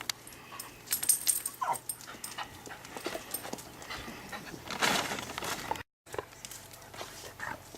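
Australian Cattle Dog whimpering in short falling cries, with clicks and rustling and a louder scuffling noise about five seconds in.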